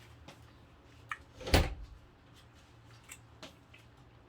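Eating noises: small scattered mouth and handling clicks, with one short, louder thump-like sound about a second and a half in.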